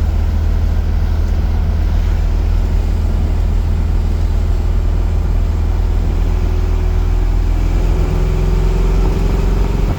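1964 Chevrolet Impala's built 327 small-block V8 running steadily with a low, even drone. A faint tone rises slightly in pitch over the last few seconds.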